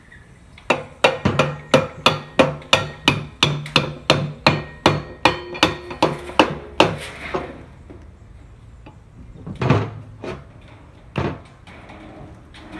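A hammer tapping bolts into the holes of a steel coupling drive gear: about twenty sharp metal-on-metal strikes, roughly three a second, each leaving a short ring, stopping about seven seconds in. Two duller knocks follow near the end.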